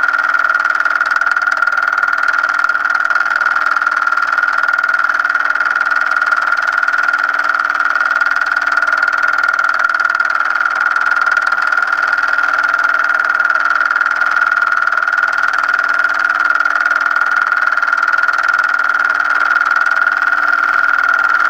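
Film projector running: a steady mechanical whir with a constant high-pitched whine over hiss and a low hum.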